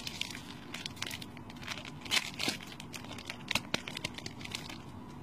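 Foil Pokémon trading-card booster pack wrapper crinkling and tearing as it is opened, in a run of irregular crackles.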